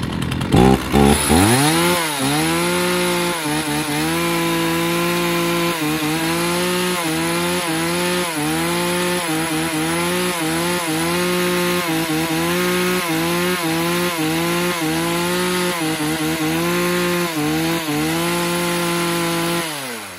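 Ryobi 35cc two-stroke chainsaw with a sound-damping muffler, running after a test start. It changes speed in the first couple of seconds, then holds a steady idle with a slight regular waver. Near the end it is switched off and its pitch falls away. The owner calls it quiet as a breath of wind.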